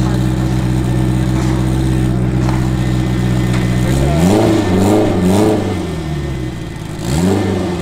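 Mitsubishi Mirage coupe's engine idling steadily, then blipped up in revs three times in quick succession about four seconds in and once more near the end.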